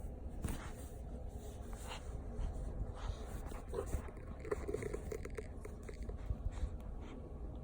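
Savannah kitten making a short run of angry pitched calls about halfway through, with scattered faint clicks around it.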